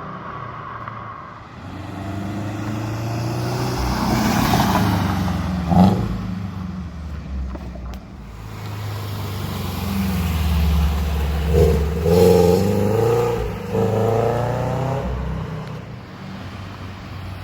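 Scion FR-S's flat-four boxer engine, fitted with Tomei unequal-length headers and an OFT stage 2 tune, accelerating and easing off a few times, its note rising and falling on the move.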